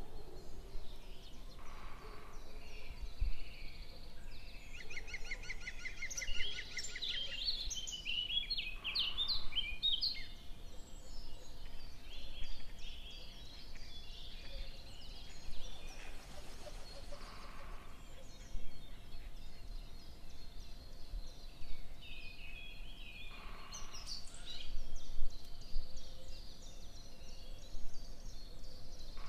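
Small birds chirping and calling, with a fast trill of evenly repeated notes about five seconds in and another run of chirps near the end.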